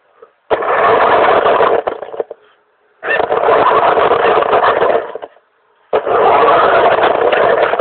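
Radio-controlled model car, a Mercedes-Benz ML 320 replica, driving in three bursts of throttle, each starting and stopping abruptly.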